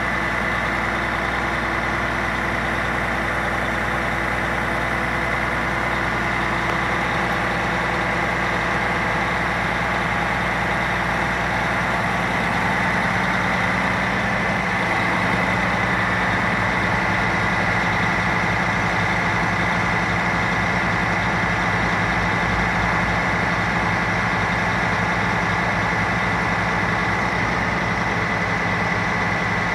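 A DAF truck's diesel engine runs steadily to power the Fassi F480 crane as its boom moves, with a steady high whine over the engine note. The engine note changes about halfway through.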